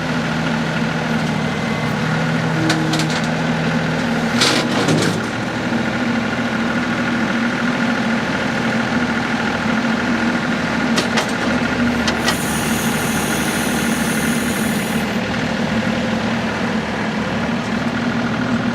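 The three-cylinder diesel engine of a 2013 New Holland Workmaster 40 tractor running steadily, its pitch shifting about five seconds in. There are a few clicks, and a brief high-pitched whine from about twelve to fifteen seconds in.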